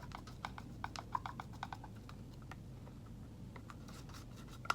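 Quick, irregular light clicks and taps of a craft stirring stick against plastic paint cups as acrylic paint is layered for a pour. They are densest at first, thin out, then pick up again near the end.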